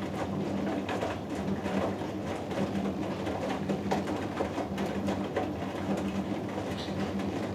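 Hoover Dynamic Next DXA610IW3 washing machine running its 90 °C cotton wash, with a steady motor hum and irregular knocks and rattles from the drum turning the load.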